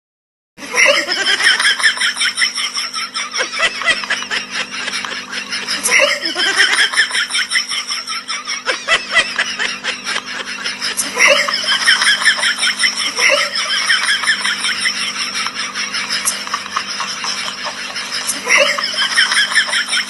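High-pitched laughter sound effect, a run of rapid giggling pulses that starts about half a second in and keeps going, seemingly looped, with the laugh restarting every few seconds.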